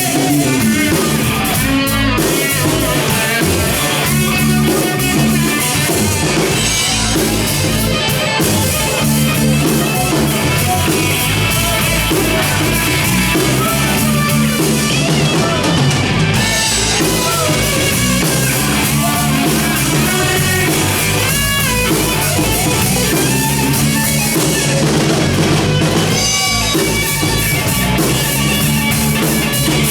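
Live country-rock band playing an instrumental stretch with no singing: guitars over bass and a drum kit.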